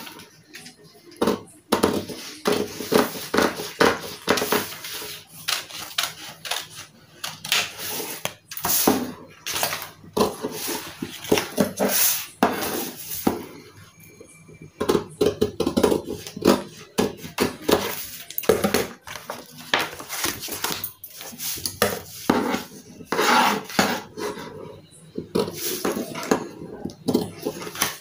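Tailor's scissors cutting out a blouse sleeve from chalk-marked black material: quick, irregular snips as the blades close again and again, with a quieter pause about halfway through.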